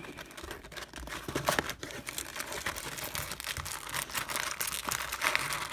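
Plastic wrapping and foil trading-card packs crinkling and rustling as a freshly opened card box is handled, with many small sharp crackles.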